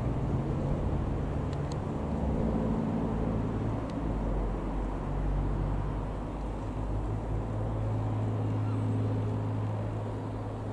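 Single piston-engine Rockwell Commander light aircraft flying overhead, its engine and propeller giving a steady drone whose hum settles lower in pitch in the second half.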